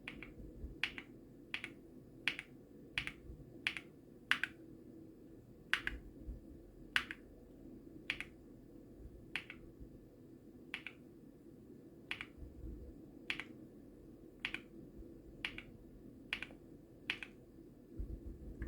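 Single keystrokes on a mechanical keyboard with Gateron Weightlessness switches: separate sharp clicky presses, roughly one a second at an uneven pace, over a faint steady hum.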